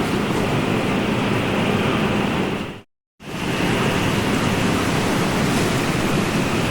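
Steady rushing of ocean surf, a dense even wash of water noise. It cuts out to silence for about half a second around three seconds in, then resumes.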